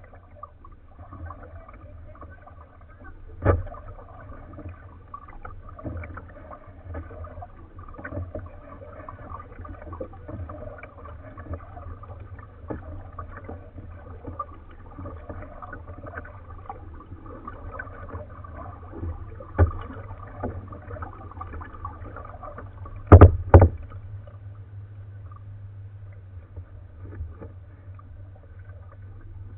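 Kayak being paddled: irregular small clicks and splashes of paddle strokes, with a few sharper knocks on the kayak's hull. The loudest is a pair of knocks about three-quarters of the way through.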